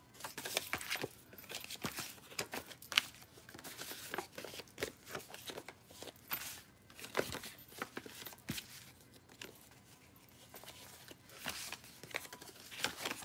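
Paper slips rustling and crinkling as they are handled and unfolded by hand, with many short, irregular crackles.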